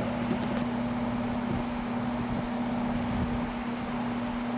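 Happy Home window box fan running on high speed: a steady rush of air from the blades over a constant motor hum.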